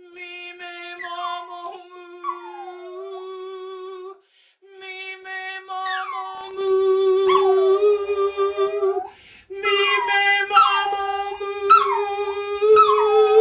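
Long-haired chihuahua howling along with a woman's sustained sung note. The dog's high cries slide sharply downward again and again while she holds the note steady in three long phrases, breaking briefly about four and nine seconds in.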